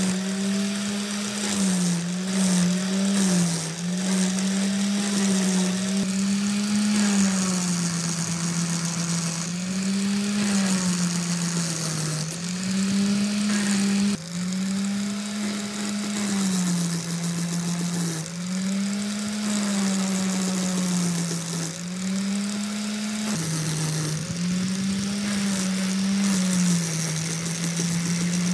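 An angle grinder with an abrasive wheel, held in a pivoting wooden jig, runs continuously while grinding the gullets of a large steel circular saw blade. Every few seconds its motor pitch sags as the wheel is pressed into the blade, then climbs back, over a hiss of grinding.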